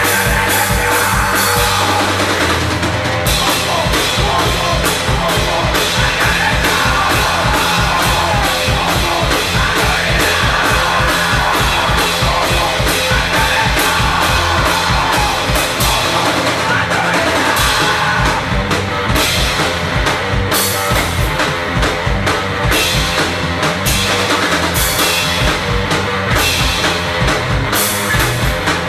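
Loud punk rock band recording, with a drum kit pounding bass drum and snare under guitar and bass.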